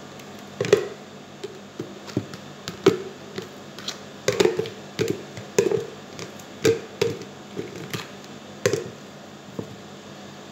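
Thin plastic water bottle crackling as it is handled and squeezed, an irregular run of sharp cracks, roughly one or two a second.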